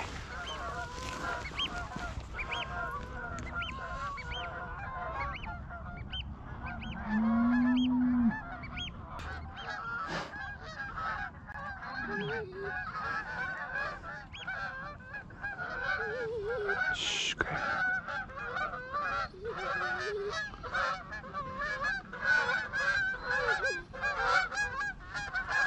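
A flock of Canada geese honking, many calls overlapping without a break and growing denser over the second half.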